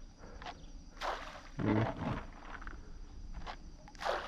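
Handfuls of corn groundbait thrown from a cup spattering onto the lake surface, about a second in and again near the end, with a brief low hum in between.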